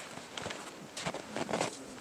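Snow crunching a few times in short, scattered bursts, the clearest about a second in and just after.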